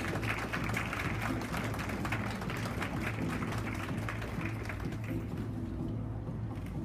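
Audience clapping, a dense patter of hand claps over background music with a steady low bass. The clapping thins out about five seconds in.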